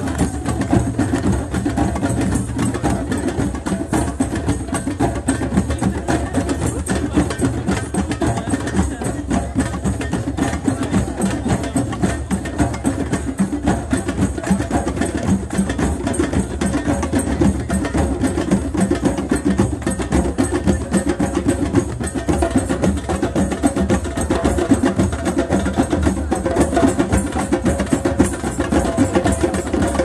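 Rhythmic drumming with a fast, steady beat.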